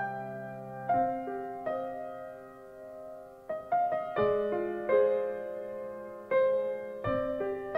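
Slow, gentle piano music: notes and chords struck about once a second and left to ring.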